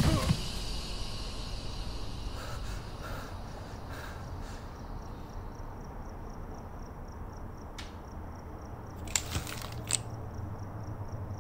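Night ambience: a steady low rumble, with a cricket chirping in an even, rapid pulse from about halfway through. A few sharp clicks come near the end.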